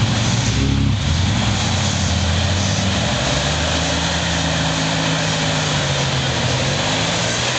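Jeep Wrangler engine running under load as it crawls up a rocky, rutted trail, its note rising and falling as the throttle is worked.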